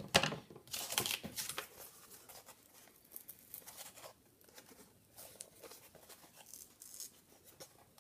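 Cardboard being cut with a knife and then bent and folded by hand: a few sharp scraping strokes in the first second or so, the first the loudest, then faint crinkling and rustling of the cardboard.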